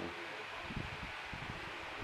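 1917 Hendey lathe running steadily at low speed, driven by an electric motor through belts: an even whir with a faint steady hum.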